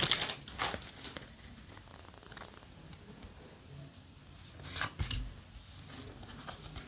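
Yu-Gi-Oh! trading cards being slid one by one off a handheld stack: faint papery slides and light taps a second or so apart, with a louder slide about five seconds in.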